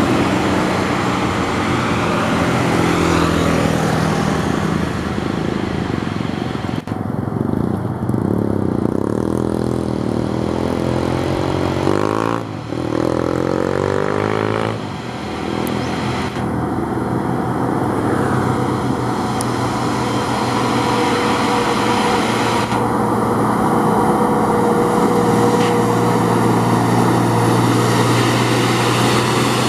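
Diesel engine of an Isuzu Giga heavy truck pulling up a steep grade, a steady, loud drone with some shifts in pitch, swelling near the end as the truck passes close by. Another car passes at the start.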